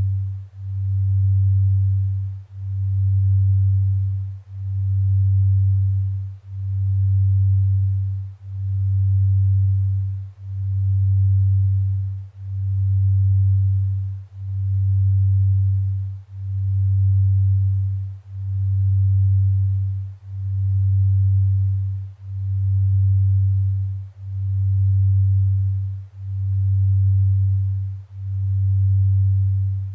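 Binaural-beat tones: a single low, pure hum that swells and fades evenly about every two seconds. This is a slow delta-range beat meant to induce sleep.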